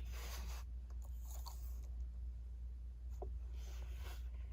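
Rustling and rubbing from the keyboard and its accessories being handled, in a few short bursts over a steady low hum.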